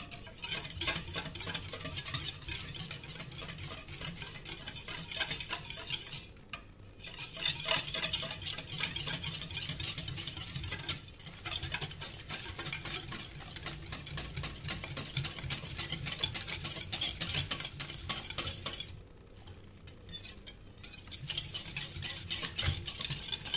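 Wire whisk stirring briskly in a stainless steel bowl of hot water, dissolving African black soap that still has a few lumps left: a fast clatter of wire against metal and liquid. It pauses briefly about six seconds in and again for a couple of seconds later on.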